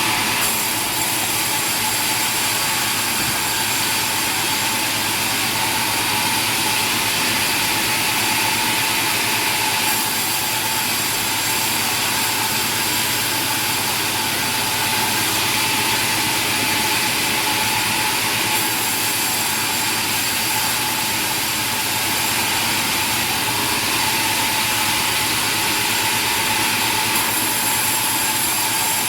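Sawmill machinery running steadily, a continuous engine-like drone with a steady hum and a high hiss. The sound shifts slightly in character about 10, 18 and 27 seconds in.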